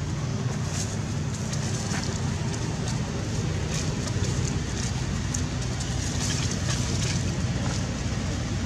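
Steady low background rumble, with a few faint, brief rustles or clicks scattered through it.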